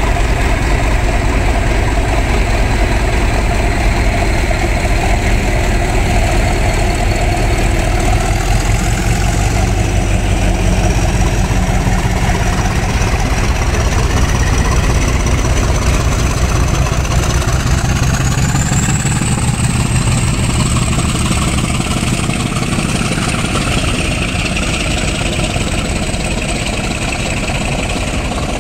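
GBRf Class 50 diesel locomotive's English Electric 16-cylinder engine working hard as it hauls a train away, with a deep steady rumble and a high whine that rises in pitch twice, about a third and about two-thirds of the way through.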